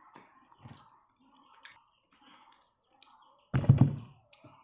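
Faint scattered clicks, then one loud, brief knock about three and a half seconds in.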